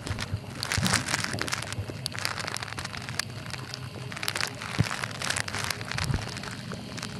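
Continuous underwater crackling with many irregular sharp clicks, heard through a camera sealed in a soft plastic waterproof bag.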